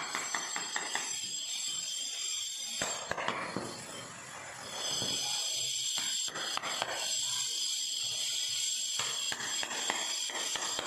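Hammer striking the head of an axe wedged under a granite floor tile, prising the tile off its mortar bed: sharp metal knocks in short runs of taps, over a steady high-pitched hiss.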